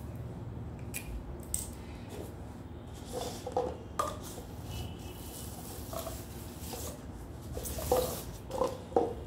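Paper cups and sheets of paper being handled and moved about on a tabletop: scattered light taps and knocks with some rustling.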